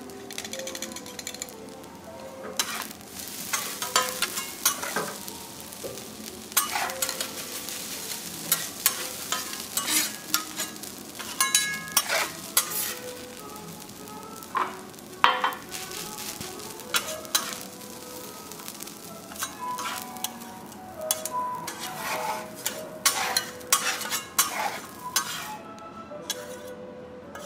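Food sizzling on a teppanyaki iron griddle while metal spatulas scrape and clack against the plate as the chef works it. The sizzle dies away near the end.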